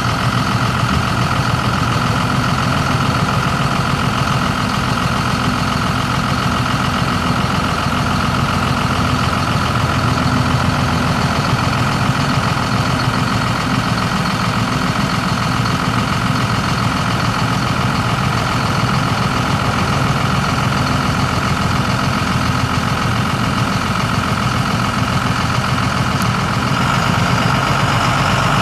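The 1999 Ford F800's Cummins ISB 5.9-litre six-cylinder turbo diesel idles steadily while the hydraulic hoist lowers the flatbed dump body. A steady high-pitched whine runs over the engine note.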